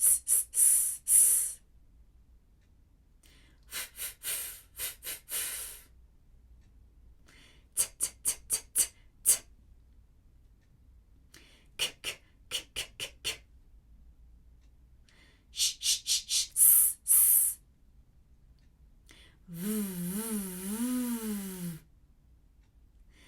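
Vocal warm-up: a woman's voice making groups of short, sharp hissing consonant sounds like "shh", five or six to a group, with pauses between the groups. Near the end her voice glides up and down in waves, like a siren.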